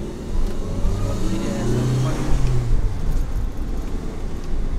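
Car driving, its engine note swelling to a peak about two seconds in and then easing off, over steady road noise.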